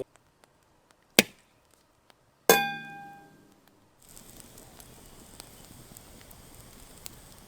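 A sharp crack about a second in, then a heavier hit that rings out with a metallic tone and fades over about a second. After that, faint steady background noise with a few small ticks.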